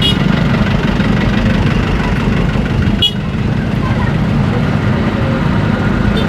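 Steady low rumble of engines running: an excavator working and vehicles on the road beside it. Three short sharp metallic clinks, about three seconds apart, punctuate it.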